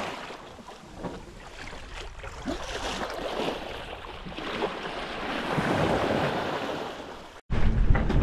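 Sea water washing and splashing along a sailboat's hull as it sails, with wind on the microphone. About seven and a half seconds in, the sound cuts off abruptly and comes back louder, with a low wind rumble.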